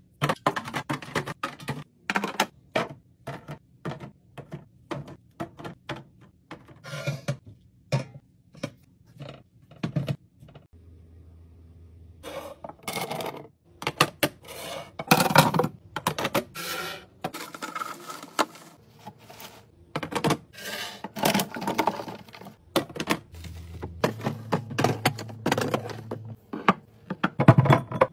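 Rapid clicks, taps and knocks of plastic and glass containers being handled and set into a fridge while restocking it, with a quieter gap about ten seconds in.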